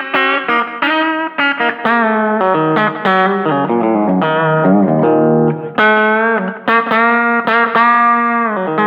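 Eart headless electric guitar with 13-gauge strings playing a single-note lick full of string bends, one note wavering with vibrato about halfway through. It runs through a reverb and delay into a small Fender Rumble 15 amp fitted with a guitar speaker.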